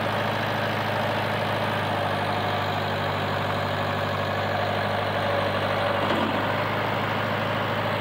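International Harvester 3500A backhoe-loader's engine running at a steady idle, a constant low hum that swells slightly about six seconds in.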